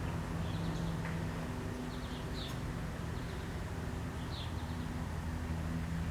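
Short bird chirps every second or two over a steady low hum.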